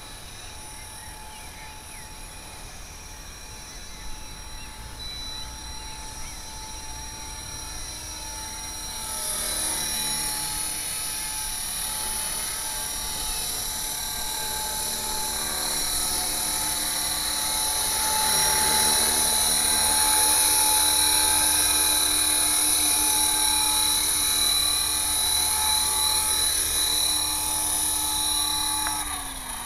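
HK 450 Pro TT electric RC helicopter running with its head speed around 2200 rpm, a steady whine of several tones with an unhealthy noise caused by a defective mainshaft ball bearing. It grows louder about a third of the way in and again past the middle, and its pitch starts to fall near the end as the rotor slows.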